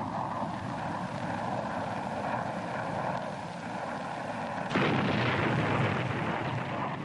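Combat sound of war: a steady drone with a faint whine, then a sudden loud explosion about five seconds in that rumbles on for a second or two.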